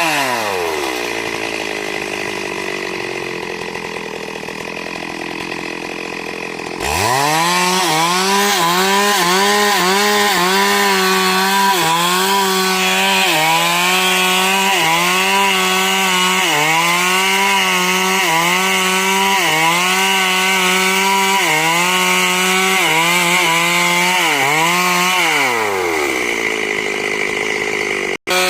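Stihl MS 382 two-stroke chainsaw dropping to idle, then revved up about seven seconds in and cutting wood, its revs dipping again and again under load. Near the end it drops back to idle.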